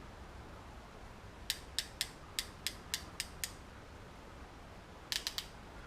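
Ratcheting open-barrel crimper clicking as its handles are squeezed down on a terminal pin: eight sharp clicks at about three or four a second, then a quick run of three more near the end.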